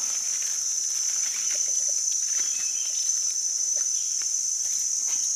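A steady, high-pitched chorus of forest insects, with faint rustling of dry leaf litter as hands dig out a mushroom.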